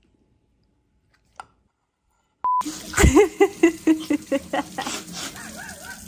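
Near silence, then a short beep and a thump about halfway through, followed by quick clicks and knocks of a spatula working in a metal pot of cream filling, with a wavering whine-like tone over them.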